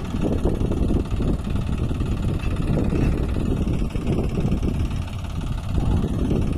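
Farm tractor's diesel engine idling, a steady low-pitched running sound without changes in speed.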